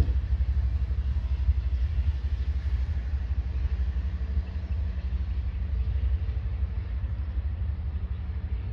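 Low rumble of an Amtrak passenger train moving away around a curve, easing slightly toward the end.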